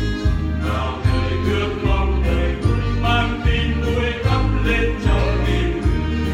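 A choir singing a hymn over a backing band, with a steady beat of bass notes and drums.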